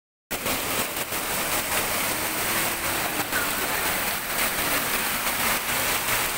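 Muddy floodwater rushing in a fast torrent past rocks: a steady, loud rushing noise that starts suddenly a fraction of a second in.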